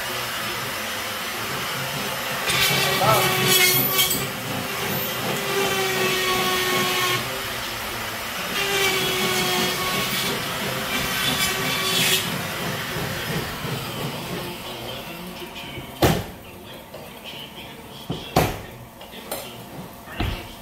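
A steady hissing noise with a whining tone that comes and goes, fading after about two thirds of the way through; then a few sharp knocks of a drywall hammer driving nails into drywall overhead, spaced about two seconds apart.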